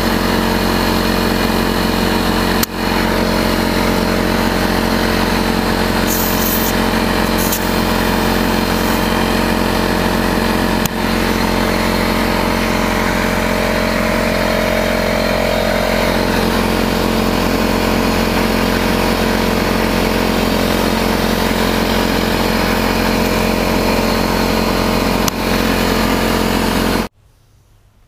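Air compressor running steadily as it inflates tires, a constant motor hum with a few brief dips, cutting off suddenly near the end.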